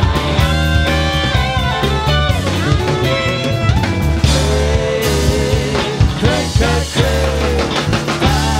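Rock band playing live: two electric guitars over drum kit, bass and keyboards, in a loud, dense psychedelic rock groove.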